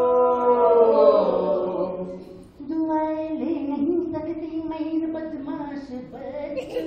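Unaccompanied live singing: a man's voice drawing out long held notes. The first note swells and falls away; after a short break a lower note is held for several seconds.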